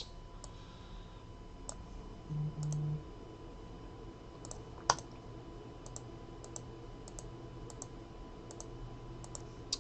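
Computer mouse clicked now and then: a dozen or so soft, scattered clicks, one sharper than the rest about five seconds in. A short low hum comes in twice around two and a half seconds.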